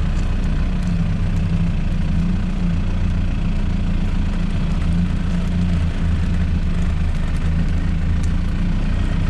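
Off-road 4x4's engine running steadily at low revs, with a few light clicks.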